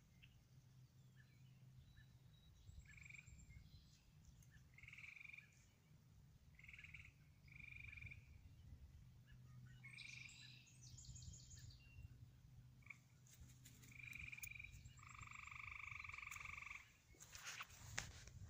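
Faint animal calls: short chirps every second or two, then a longer pulsing call of about two seconds near the end, over a low steady hum. A few clicks come at the very end.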